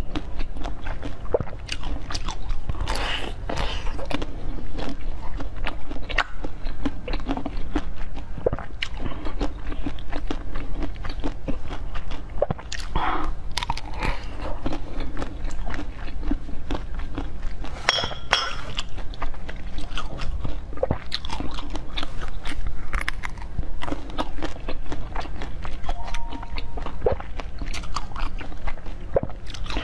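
Close-miked biting and chewing of blue grape-shaped treats pulled off a bunch, with many irregular crunching bites and crackles, over a steady low hum.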